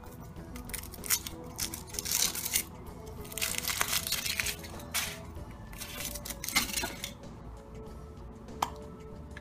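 Foil wrapper of a Kinder Surprise chocolate egg crinkling as it is peeled off, in several rustling bursts over the first seven seconds. Near the end a single short snap comes as the chocolate shell is split. Background music plays throughout.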